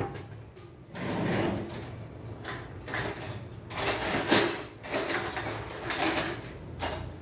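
Irregular clinks, knocks and scrapes of hand tools and a car AC compressor being handled on a workbench, while a circlip is worked on to free the compressor's clutch coil.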